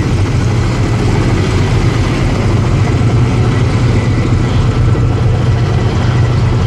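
Steady, loud low engine drone with a rushing noise over it, unchanging throughout.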